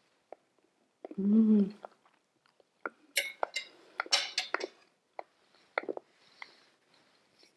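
A short hummed "mmm" of enjoyment while eating, then a fork and knife clinking and scraping against a serving plate of pasta in a run of quick clicks.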